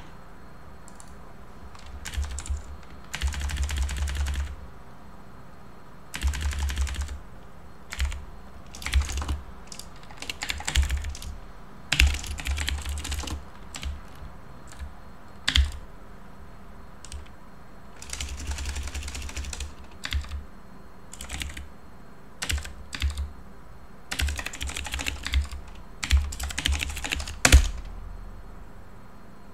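Typing on a computer keyboard in spurts of rapid key clicks with short pauses between, and one louder key strike near the end.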